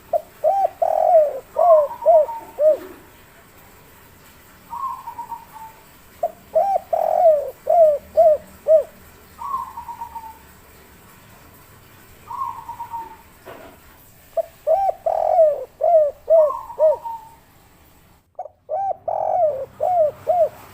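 Spotted dove (derkuku/tekukur) cooing its 'kuk 3' song: a phrase of quick, looping coos repeated four times, about every five or six seconds. A shorter, higher falling coo sounds between the phrases.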